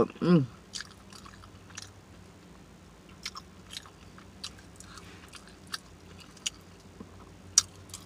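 Open-mouthed chewing of a fish sub: wet mouth smacks and clicks, scattered one or two a second. A short falling hum of the voice comes just after the start.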